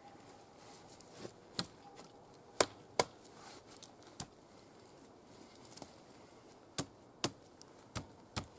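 Irregular sharp clicks and knocks of wood and twigs being handled at a log wall, about eight in all, the two loudest close together about a third of the way in.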